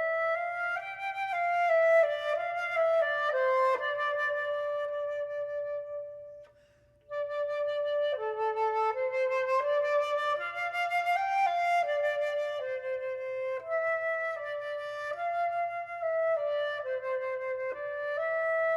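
Solo flute playing a slow melody that keeps returning to one held note, in two phrases separated by a short pause about six and a half seconds in.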